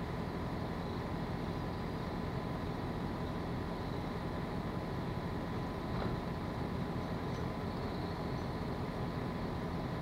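Steady low rumble with a constant hum, from distant machinery, with a faint steady higher tone over it.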